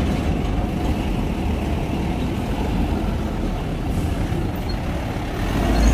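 Diesel engines of small cargo trucks running as they drive up a steel ferry loading ramp: a steady low rumble.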